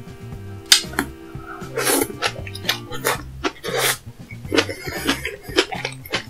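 Close-up mouth sounds of eating: repeated wet chewing and smacking, several times a second at points, over soft background music with a steady repeating bass line.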